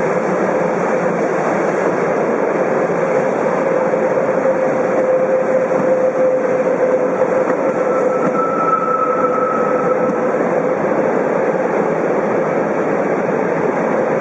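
Freight train hauled by an SBB Re 4/4 II electric locomotive rolling slowly past: a steady rail rumble with a steady hum, and a brief higher tone about eight seconds in.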